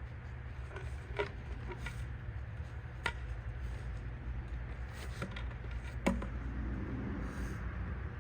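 Wood being handled: a few scattered knocks and clunks of logs or branches striking each other, the loudest about six seconds in, over a steady low rumble.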